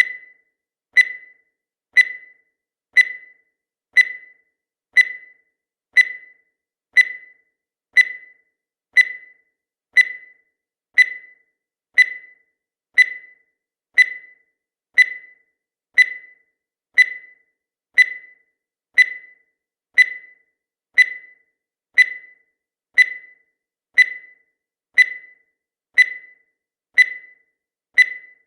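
Countdown timer sound effect: a short, high-pitched beep once every second, each one dying away quickly, in a perfectly even rhythm.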